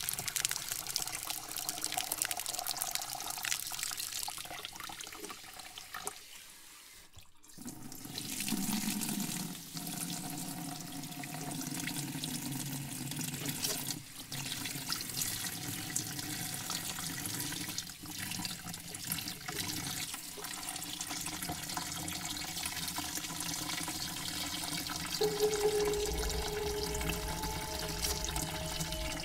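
Shower water running steadily, with a brief break about six seconds in. A low rumble joins near the end.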